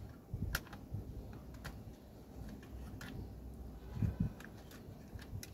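Handling noise from a Panasonic IH rice cooker's plastic control panel and display circuit board being fitted into the lid housing: a handful of scattered sharp plastic clicks, with a duller pair of knocks about four seconds in.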